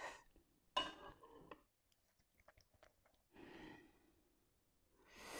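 Near silence with faint eating noises: a short mouth smack about a second in, a small click, and soft breaths.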